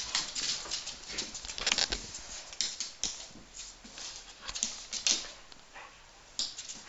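Two dogs moving about on a hard floor, making short scattered scuffs and clicks.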